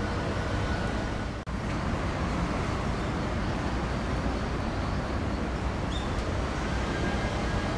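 Steady outdoor background hum of distant road traffic, with a brief dropout about a second and a half in and a faint short high chirp near the end.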